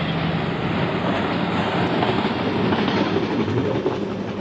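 A rail vehicle running along the track: a steady running noise with a low hum.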